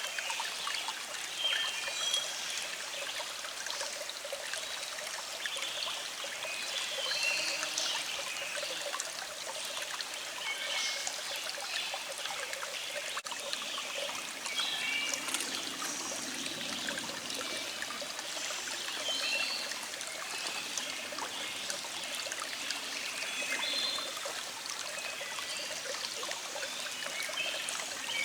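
Small stream flowing with a steady trickling babble, and birds chirping in the background.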